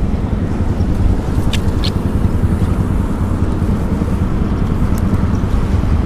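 Boat engine running with a steady low rumble, with two faint short ticks about one and a half to two seconds in.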